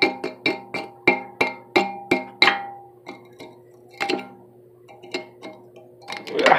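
Cast iron crucible, its wall scaled and partly melted, tapped with a rod. Quick ringing metal taps come about four a second for the first two and a half seconds, then a few sparser taps.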